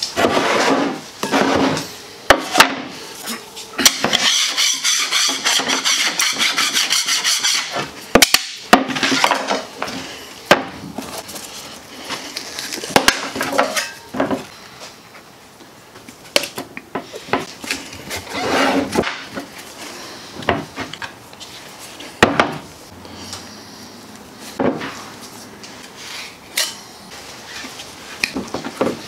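Plastic tubs, lids and a putty knife knocked and scraped while thick epoxy fairing compound is stirred, scooped out and worked on a mixing board: clicks and knocks, a few seconds of fast, even scraping about four seconds in, then scattered scrapes and taps.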